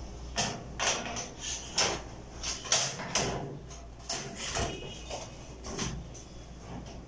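Thin sheet-metal back panel of a clothes dryer being fitted back onto the cabinet, clattering and knocking in a series of irregular short knocks as it is handled and pushed into place.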